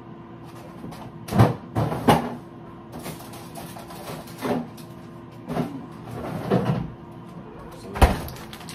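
Rummaging through a refrigerator's bottom freezer: a run of knocks and thuds from frozen packages and the freezer door, with the loudest about a second and a half in and again near the end, over a steady hum.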